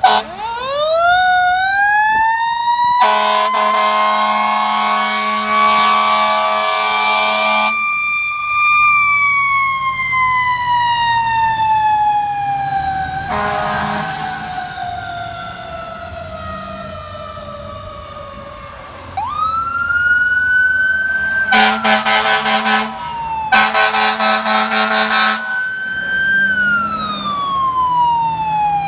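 Fire engine siren winding up to a high wail and then slowly falling, with a long air horn blast over it and a short one later. About two-thirds of the way through a siren rises sharply again, two more air horn blasts sound, and it falls away near the end.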